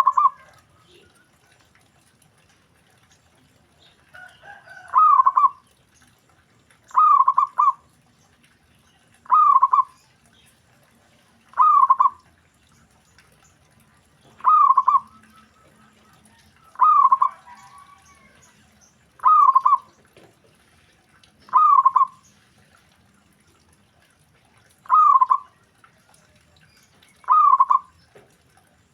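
Zebra dove (perkutut) cooing: a short, quick rolling phrase repeated about every two and a half seconds, a dozen times in all. A fainter, overlapping call joins briefly twice.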